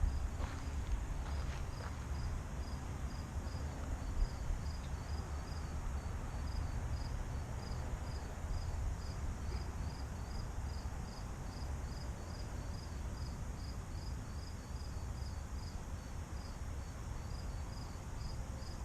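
A cricket chirping steadily, short high chirps at about two to three a second, over a steady low rumble.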